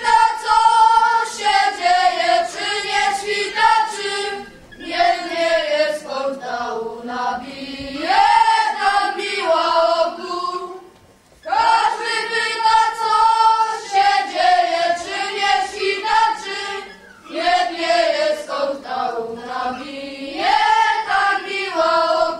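A group of children singing a Polish Christmas carol (kolęda) together on one melody line, with no accompaniment. The tune runs through twice, with a short pause for breath about halfway.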